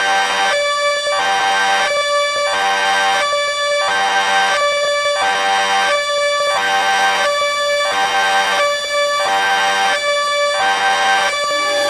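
Electronic railway level-crossing warning siren sounding without a break. It alternates between a higher, buzzy tone and a lower one, and the pair repeats about every second and a third.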